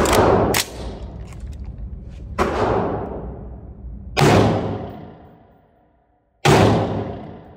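AR-15-style pistol fired in single shots in an indoor range: sharp reports about one to two seconds apart, each followed by a long echoing tail.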